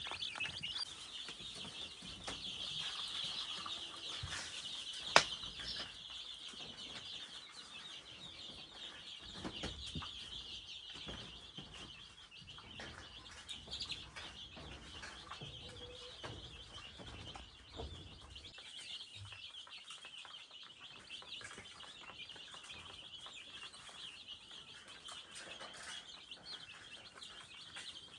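Chickens clucking and wings flapping over a steady, high, dense chirping, with one sharp click about five seconds in.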